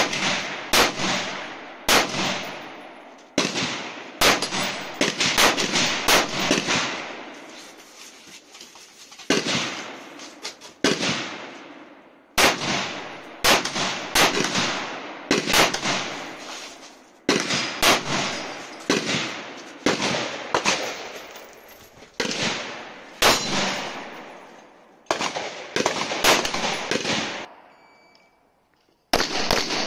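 Rapid semi-automatic .223 rifle fire from a Savage Arms MSR 15 Competition AR-15 with a muzzle brake: sharp shots in quick strings and pairs, separated by pauses of a second or two, each shot trailing off in a short echo.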